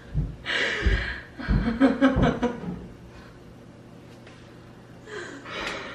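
A woman laughing breathily in a few short bursts, with some dull low thuds among them.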